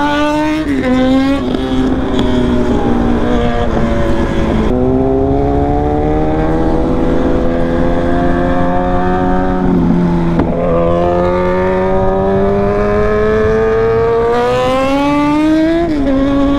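KTM sport bike's single-cylinder engine accelerating through the gears, its pitch climbing for several seconds and then dropping at each shift, several times over.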